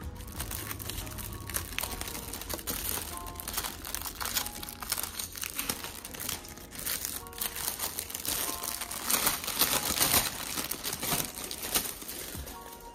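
Packaging crinkling and rustling as a package is opened and a rolled poster is unwrapped, loudest a little past the middle, over quiet background music.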